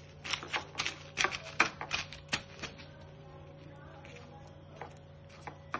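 Plastic wrap crinkling and ice crackling under it as hands press the wrap down over a plate of ice: a quick, irregular run of sharp clicks that dies away after about two and a half seconds.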